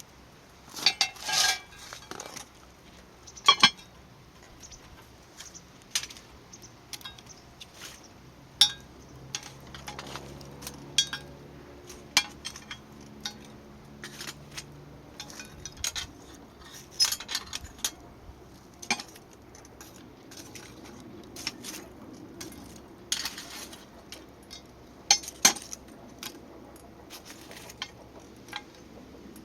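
Metal utensils and cookware clinking and knocking together in irregular, separate strikes while food is prepared, the loudest about a second in and again near three and a half seconds. A low steady hum runs through the middle.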